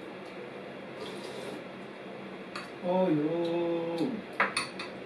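Quiet kitchen room tone, then a short drawn-out voice for about a second, followed by a few quick sharp clinks of kitchenware near the end.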